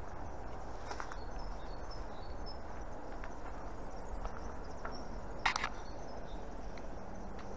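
Outdoor ambience: a steady background hiss with scattered short, high bird chirps, and two brief scuffs, about a second in and about five and a half seconds in.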